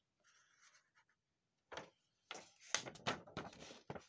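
Faint rustling of a paper rules sheet as it is handled and put down: a few short crinkles starting about two seconds in.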